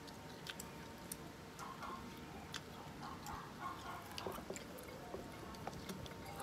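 Faint scattered light ticks and taps from handling at a table, as the cut-off top of a steamed coconut is lifted and set back on the coconut, over a faint steady hum.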